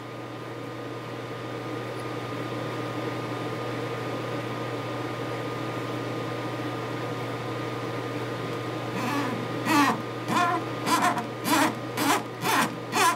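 A steady background hum. From about nine seconds in, a fingertip rubs back and forth over the freshly cleaned, flat BGA solder pads of a circuit board, at about two rubbing strokes a second.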